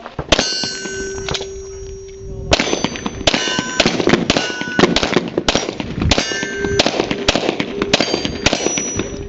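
A string of rapid handgun shots, about fifteen, with a short pause after the first two. Many shots are followed by the high ringing clang of a steel plate target being hit.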